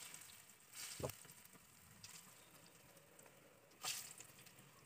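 Faint, steady sizzling of oil in an iron kadai as small potato-and-rice pakoras deep-fry. Two sudden louder bursts of sizzle, about a second in and near the end, as more balls of batter are dropped into the hot oil.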